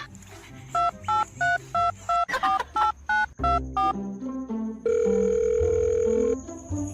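Telephone keypad dialing tones: about a dozen short two-pitch beeps in quick succession, then a steady tone of about a second and a half, over background music.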